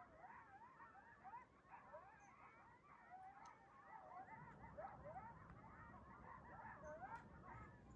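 A pack of coyotes howling and yipping together: many faint, wavering voices overlap in a continuous chorus.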